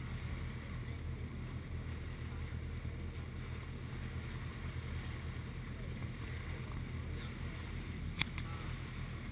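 Old motor lifeboat's inboard engine running steadily with a low hum, under gusts of wind on the microphone. A single sharp click sounds near the end.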